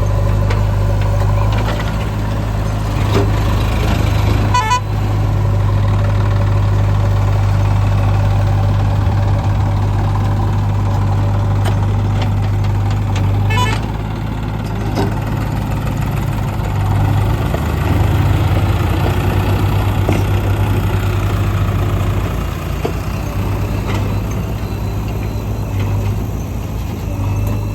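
Diesel engine of a backhoe loader running steadily while it works, with the tractor's engine likely running alongside. Two brief sharp sounds come about five and fourteen seconds in.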